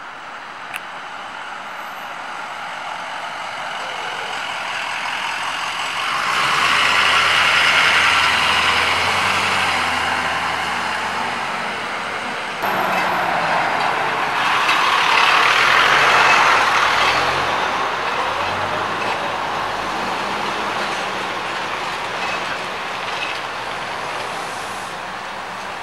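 Full-size trucks and a van driving slowly past one after another, engine and tyre noise swelling as each comes close, with two peaks, the first about a third of the way in and the second past the middle.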